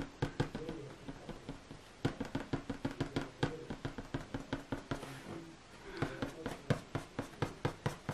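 Kneadable putty eraser dabbed repeatedly against hot-pressed watercolour paper to soften the graphite, making a quick run of light taps, several a second, with a brief lull about five seconds in.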